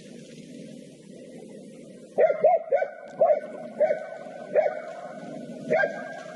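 A hunting laika barking, about seven sharp barks at uneven gaps starting about two seconds in, the bay of a laika working a wild boar.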